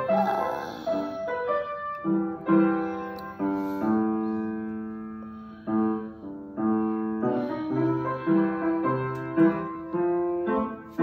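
Background piano music: single notes and chords that strike and ring out, then fade.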